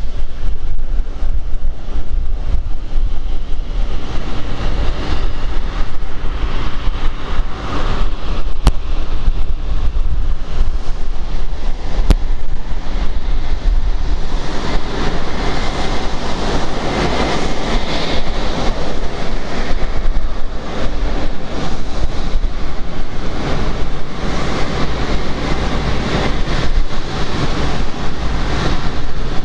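Twin jet engines of a Boeing 777-200 airliner running at taxi power as it taxis past, a steady jet noise that swells a little about halfway through.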